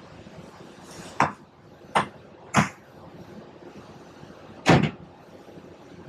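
Four short thumps over a steady low background: one about a second in, two more close together around two to two and a half seconds, and a last, loudest and slightly longer one near five seconds.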